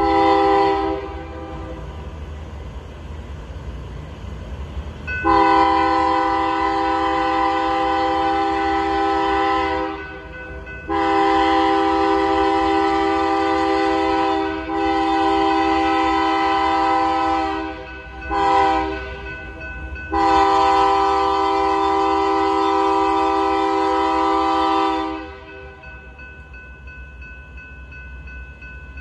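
Horn of an approaching BNSF GE Dash 9 locomotive sounding a multi-note chord in the grade-crossing pattern: long, long, short, long, the last blast cutting off about four seconds before the end. A steady low diesel rumble from the oncoming train runs underneath. A previous blast tails off about a second in.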